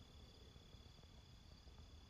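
Near silence, with faint, steady, high-pitched insect trilling, like crickets, over a low rumble.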